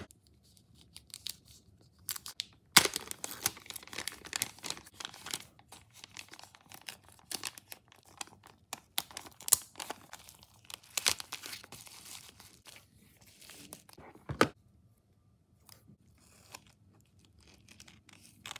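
Plastic packaging being handled and torn while cards are packed: a dense run of crinkles, rustles and sharp crackles that thins to a few quieter handling sounds near the end.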